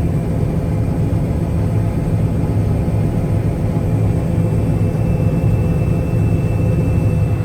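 Combine harvester running steadily while harvesting corn: a constant low drone with a thin, steady high whine above it that cuts off near the end.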